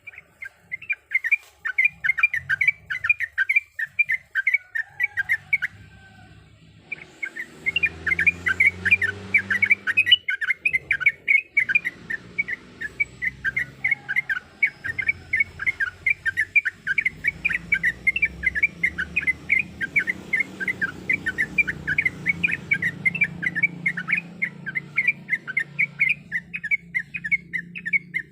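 Sooty-headed bulbul (trucuk) singing a long, fast run of short chattering notes, several a second, with one brief pause about six seconds in. A low rumble sits behind it for most of the run.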